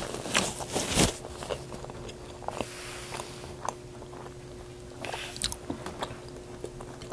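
Close-miked chewing of a mouthful of loaded carne asada fries: many soft wet clicks and smacks of the mouth. Near the start a paper napkin rustles as it is wiped across the lips, and a faint steady hum runs underneath.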